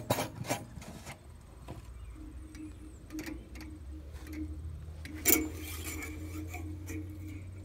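Light clicks and scraping of the oil dipstick being worked out of the filler tube on a Cub Cadet 1450's engine, with one sharper clatter about five seconds in, over a faint steady hum.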